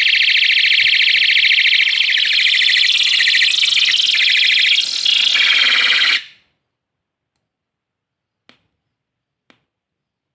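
Electronic siren sound module playing a high, rapidly pulsing alarm tone through a small speaker, which cuts off suddenly about six seconds in. Two faint clicks follow near the end.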